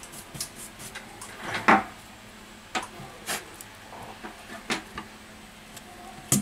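Scattered clicks and knocks of a smartphone's bare metal display frame and a metal scraping tool being handled and set against a silicone work mat. The loudest is a knock nearly two seconds in, with a quick pair of sharp clacks at the end.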